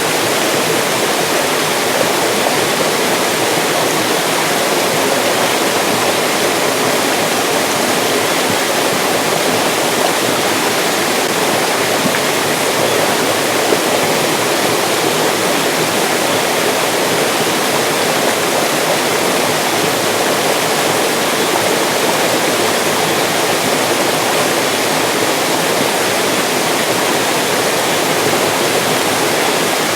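Mountain stream rushing and splashing over rocks, a steady, even flow of water.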